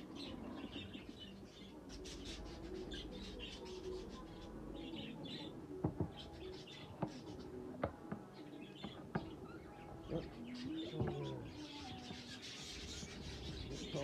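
Many budgerigars chirping and chattering, with a few sharp clicks near the middle.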